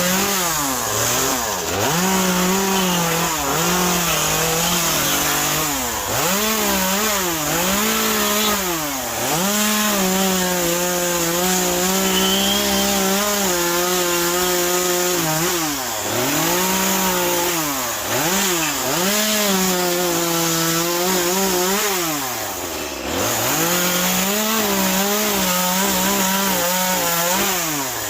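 Chainsaw cutting into a soaking wet Western red cedar stump. Its engine pitch drops sharply and climbs back up every second or two as the throttle is eased and reapplied, between longer steady cuts of a few seconds.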